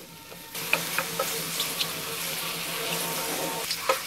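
Sliced mushrooms and onions sizzling in butter in a stainless steel pan: a steady hiss that sets in about half a second in, with scattered small pops and clicks.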